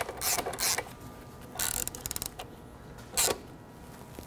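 Ratchet torque wrench tightening a motocross bike's suspension linkage bolts to spec: short, scattered strokes, with a quick run of ratchet clicks about two seconds in.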